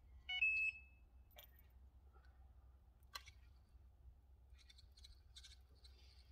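An electronic carp-style bite alarm gives one short beep, stepping up in pitch, as the rod is lifted from its rest. After it come a couple of sharp clicks and soft rattling from the fishing reel being handled.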